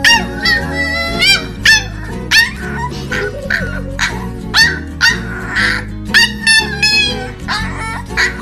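Puppy yapping in a string of short, high-pitched yips, over background music.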